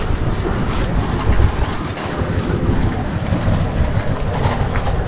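Wind buffeting the microphone and road rumble while riding a bicycle, with a few light clicks near the end.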